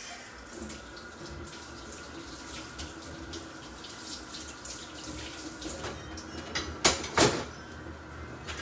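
Water running from a kitchen tap into a sink, with two sharp knocks close together about seven seconds in.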